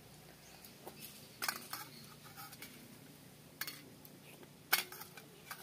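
Two people eating watery rice by hand from steel bowls: a few sharp wet mouth smacks and clicks, the loudest about three-quarters of the way through.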